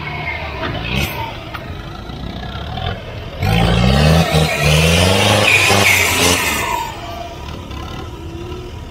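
Off-road 4x4's engine running, then revved hard for about three seconds from about three and a half seconds in, its pitch rising twice under a loud rush of noise.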